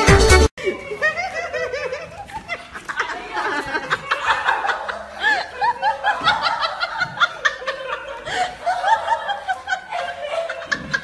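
People laughing again and again over the clip's own sound. Electronic music with a beat cuts off about half a second in.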